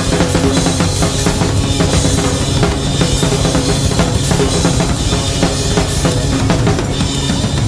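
Background music with a driving drum-kit beat.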